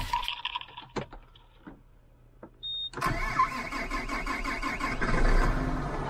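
A few clicks and a short high beep in the cab, then the farm tractor's diesel engine fires about three seconds in on a cold start and keeps running steadily.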